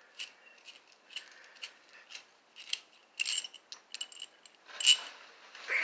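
Irregular light metallic clinks and clicks of a washer and nut being handled and fitted onto a long half-inch bolt by hand, with a louder cluster about three seconds in and another near five seconds.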